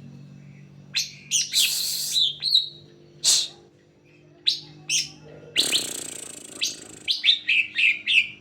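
Green leafbird (cucak hijau) singing: an irregular string of sharp chirps, whistled notes and harsh buzzy calls, with a quick run of notes near the end. A faint steady low hum lies underneath.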